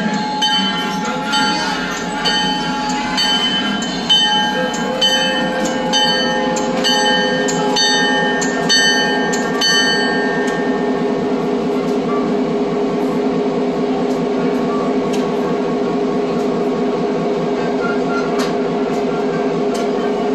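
Diesel locomotive's bell ringing in evenly spaced strokes while the locomotive creeps up to couple onto its train, over the steady drone of its engine. The bell stops about ten seconds in, leaving the engine running.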